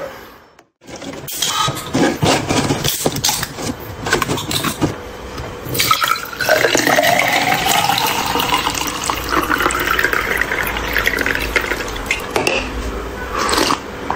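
A run of sharp clicks and knocks, then canned milk tea poured from two cans at once into a tall glass: a steady splashing pour whose pitch rises as the glass fills.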